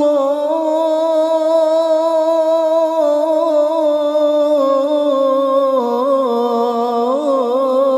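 A man's voice chanting the adhan, the Islamic call to prayer, drawing out the last syllable of 'Allahu akbar' in one long, unbroken melismatic note. The pitch wavers in ornaments, sinks lower about halfway through, and breaks into quicker turns near the end.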